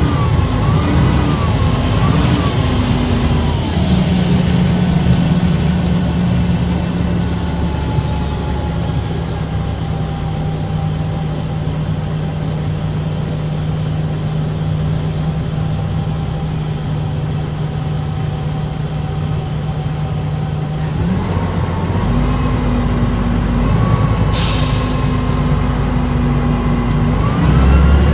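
Bus engine and Voith DIWA automatic gearbox under way: the drone and gear whine waver at first, then hold one steady pitch for much of the time. About 21 s in the pitch shifts as the gearbox changes state, and a short hiss of air follows a few seconds later.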